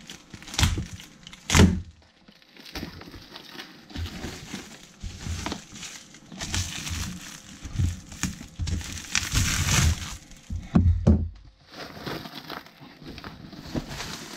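Plastic shipping bag and its plastic wrapping being cut open and handled: irregular crinkling and rustling, with a few sharp crackles and snaps.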